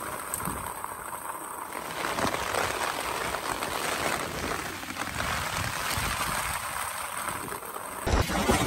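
Steady rush of running water in a muddy, flooded stream, with a short click about 8 seconds in.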